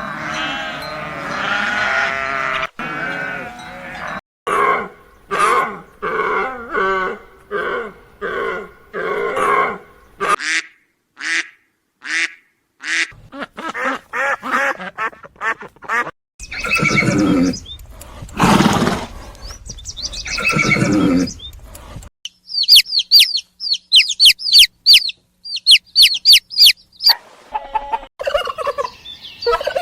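A series of different animal calls, one after another, from farm animals and fowl. Pitched calls and repeated pulsed calls come first, then several loud broad calls, then a burst of rapid high chirps near the end.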